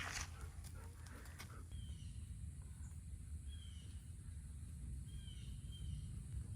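Bird chirping: short, high, downward-sliding chirps repeated several times, over a faint low rumble. In the first second or so there is rustling and a few clicks.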